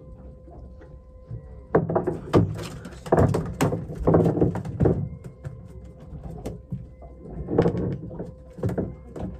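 Two spells of irregular knocks and thumps, the first starting about two seconds in and the second near the end, over a faint steady hum.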